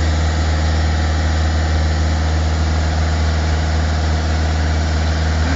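Large vehicle engine idling steadily, a deep, even drone that neither rises nor falls.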